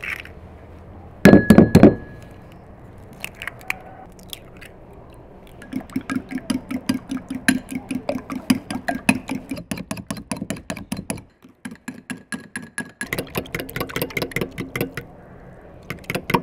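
Fork beating eggs in a small ceramic bowl, a quick steady clinking of the tines against the bowl several times a second, then stirring in an enamel saucepan as the beaten egg is poured into water. A short loud clatter comes about a second in.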